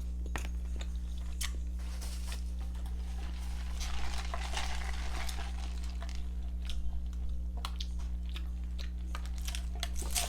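Close-miked chewing and biting of a person eating gyro meat and rice, with sharp mouth clicks scattered through, over a steady low hum.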